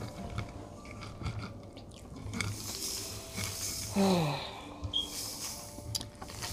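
Knife and fork clicking and scraping on a plate as chicken is cut, with breathy noise. About four seconds in, a short voice sound falls in pitch.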